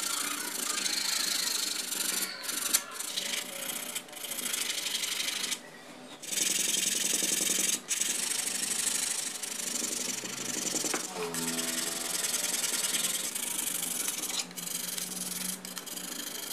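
Hand-sanding a wooden toy car body with a sanding block: quick back-and-forth scratchy rubbing strokes over the wood, with a brief pause about a third of the way in and another short break soon after.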